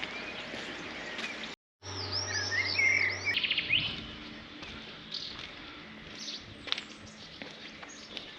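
Songbirds singing: scattered chirps, cut off briefly about two seconds in. A louder bout of looping, gliding song and a quick trill follows, with a low steady hum under it, then scattered chirps again.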